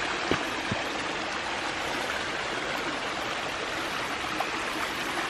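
Steady rush of water from a small waterfall running with rainwater.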